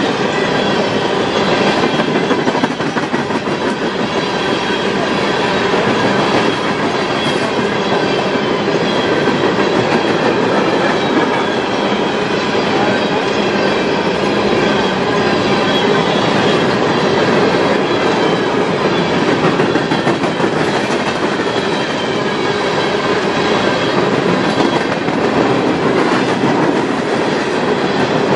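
A coal train's gondola cars rolling past, their steel wheels running steady and loud on the rails.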